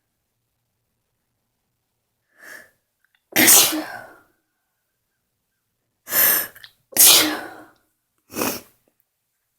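A person sneezing four times in the morning: one sneeze about three seconds in, then three more in quick succession near the end, the last one weaker.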